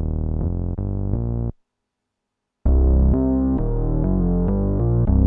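Korg Polysix analog synthesizer playing a bass sound as a run of short bass notes. The run stops about a second and a half in, and after a second of silence a second, brighter bass phrase starts.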